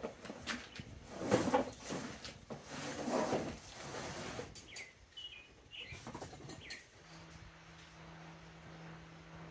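Cardboard boxes of car parts being set down and pushed along a pickup truck's bed: several knocks and scrapes in the first half, with birds chirping now and then. A steady low hum comes in about seven seconds in.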